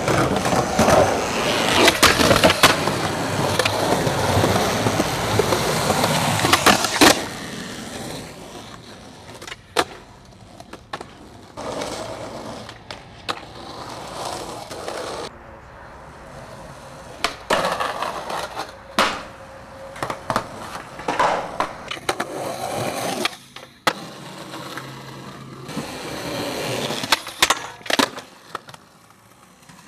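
Skateboard rolling on concrete, loud and continuous for the first seven seconds, then quieter rolling broken by sharp clacks of the board popping and landing. Near the end the trucks scrape along a concrete ledge in a grind.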